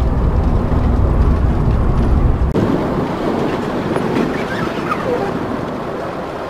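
Motorhome under way: the engine's low drone and road rumble heard inside the cab. About two and a half seconds in, after a cut, this changes abruptly to rushing wind and road noise with much less low rumble.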